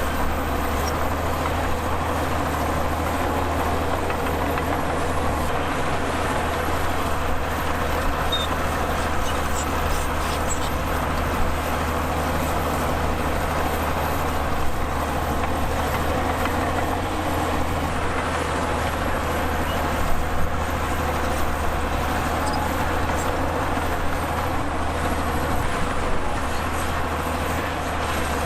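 Heavy diesel earthmoving machinery running steadily with a deep, even drone, and a few light knocks now and then.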